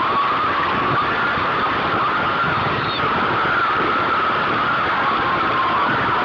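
Wooden roller coaster train (a Great Coasters International coaster) running on its track, heard from onboard: a steady loud roar with a wavering whine from the wheels.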